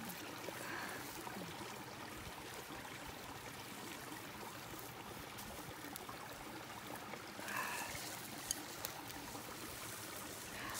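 Steady rushing of a mountain stream flowing over rocks, with a couple of faint clicks near the end.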